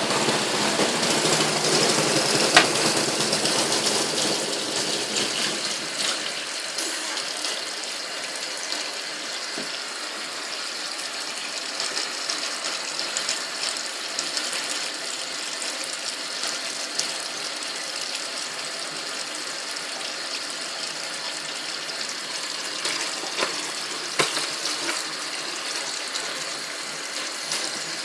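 Water running in a Superbrite twin tub washing machine, heard as a steady hiss with a few sharp clicks. A motor's low hum fades out in the first few seconds.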